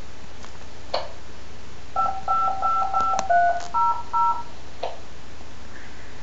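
Relm BK RPV3600A+ handheld radio sending a quick string of DTMF tones, about eight short dual-tone beeps: several repeats of one digit, then two other digits. A click comes before the string and another after it. The tones go out with no MDC1200 identifier.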